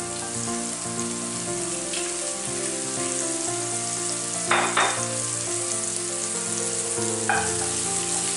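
Mushrooms sizzling as they fry in oil and butter in a stainless steel skillet, a steady frying hiss. A short, louder scrape comes about four and a half seconds in, and a fainter one near the end.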